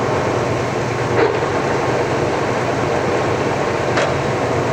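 1997 Harrison M550GH gap-bed engine lathe running with its spindle turning at a raised speed: a steady, nice and quiet machine hum with a faint whine above it and a couple of light ticks.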